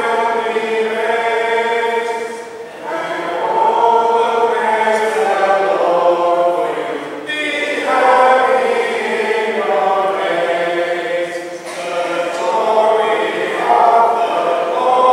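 Church congregation singing together in unison, in phrases with a short break about every four to five seconds.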